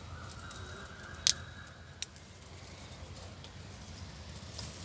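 A sharp click about a second in and a fainter one shortly after, over a steady low background hum.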